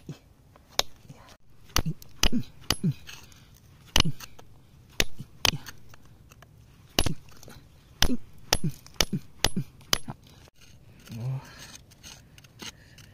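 Hand hammer striking a steel chisel against rock: a string of sharp metallic clinks at irregular intervals, thinning out near the end.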